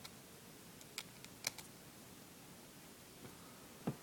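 Small screwdriver working the tiny side screws of an iPod video: a few faint, scattered metal clicks, several close together about a second and a half in, and a soft knock near the end.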